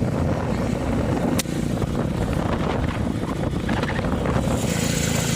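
Honda CG Fan motorcycle's single-cylinder engine running with a strange noise that the owner likens to a race car screaming. A high whine joins near the end, and there is a single sharp click about a second and a half in.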